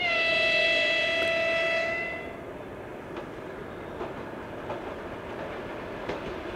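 EP1 electric locomotive sounding one horn blast of about two seconds, a single steady tone that dips slightly in pitch as it starts. The horn is followed by the approaching passenger train running, with a few faint clicks from the wheels.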